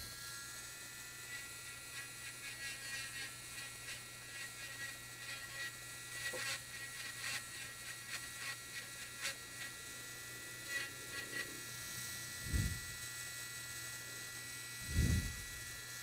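Steady electrical hum and whine, with faint irregular scratching clicks from a pointed tool scraping residue off a graphics card's circuit board around its components. Two short low thumps come near the end.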